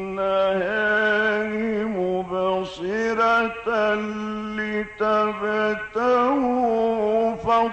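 A man reciting the Quran in the melodic, drawn-out Egyptian style. He holds long ornamented notes that waver and glide, with short breaks between phrases.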